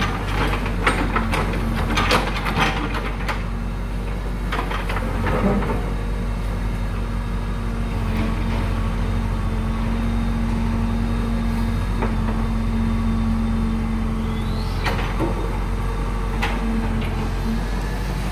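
JCB digger's diesel engine running steadily, with sharp knocks and crunches of concrete being broken in the first few seconds and again about fifteen seconds in.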